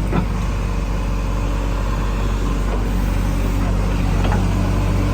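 Heavy diesel engine running steadily at a constant speed, with a short knock right at the start and another faint one about four seconds in.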